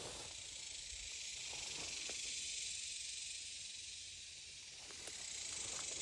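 Steady, high-pitched insect chorus droning in a summer pasture, swelling and easing slowly.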